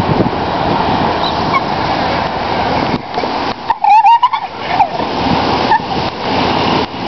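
Wind buffeting the microphone, a steady rushing noise, broken about four seconds in by a brief high wavering squeal.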